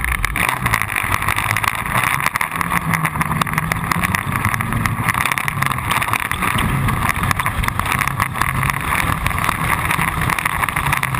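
Off-road pre-runner truck driving fast on a dirt track, its engine running with the pitch wandering up and down as the driver works the throttle. Wind and road noise are heard, with many small knocks and clicks from the rough surface.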